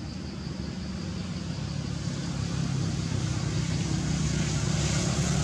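A motor vehicle's engine running, a steady low hum that grows steadily louder as it approaches.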